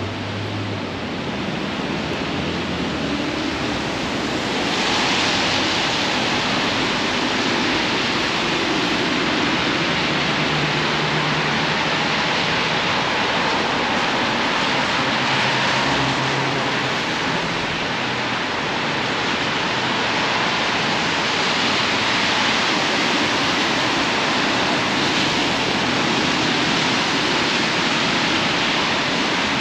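Steady hiss of rain and car tyres on wet city streets, over a low hum of passing traffic. The hiss grows a little louder about five seconds in.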